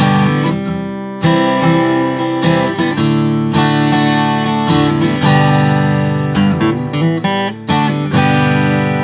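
Recording King RD-342 dreadnought acoustic guitar strummed, playing a run of ringing open chords, with a brief break in the ringing about three-quarters of the way through.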